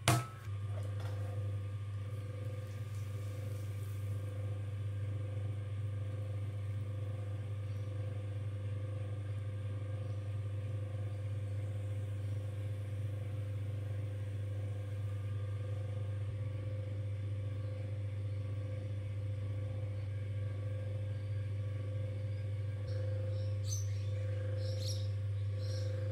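A ball of wet stoneware clay slapped down onto a metal potter's wheel head with one sharp smack. Then the electric potter's wheel runs with a steady low hum while the clay is centred and thrown, with a few faint clicks near the end.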